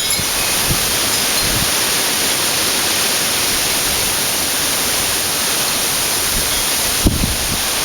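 Strong wind rushing steadily through trees, a dense hiss of tossing leaves and branches, with gusts buffeting the microphone in a low thump about seven seconds in.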